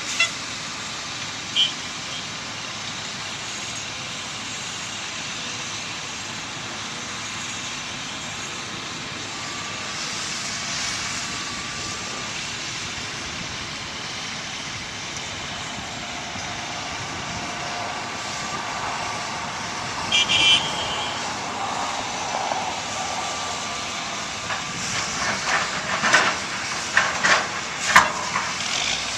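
Heavy construction machinery, an excavator and a track loader, running steadily on diesel engines, with a short high beep about twenty seconds in. Near the end comes a run of sharp clanks and knocks as concrete chunks are dropped into a steel roll-off container.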